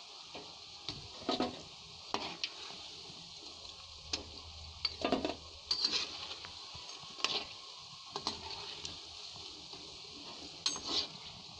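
Pakoras deep-frying in hot oil in a kadai, a steady sizzle, with a metal slotted spoon scraping and clinking against the pan every second or two as the fried pakoras are scooped out.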